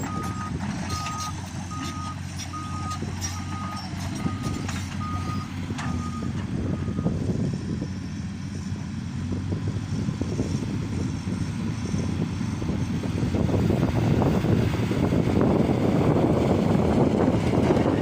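Reversing alarm on a diesel construction machine beeping steadily, about ten beeps, stopping about seven seconds in, over the machine's diesel engine running. The engine grows louder near the end.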